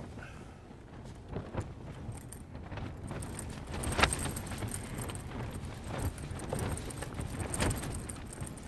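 Gear being handled inside a tent while packing up: scattered knocks, clicks and rustling, with the sharpest knock about four seconds in.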